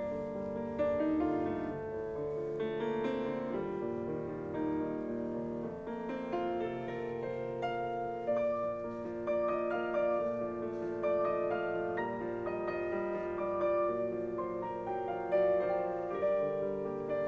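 Background piano music, with held notes and chords changing throughout.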